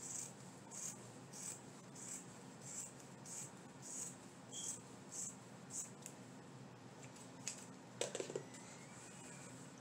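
Scissors cutting through fabric in steady snips, a little under two a second, stopping about six seconds in. A few sharp clicks follow near the end.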